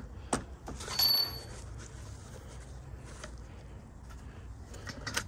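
Metal hand tools clinking: a sharp knock, then a clink with a short high ring about a second in, and a couple of lighter taps near the end.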